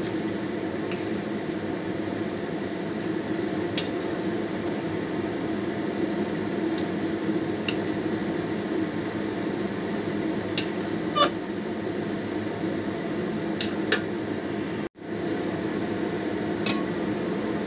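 A steady hum, with a few light clinks and knocks of utensils against a stainless steel stockpot as food is moved into it. The loudest clink comes about eleven seconds in. The sound breaks off for a moment near the end.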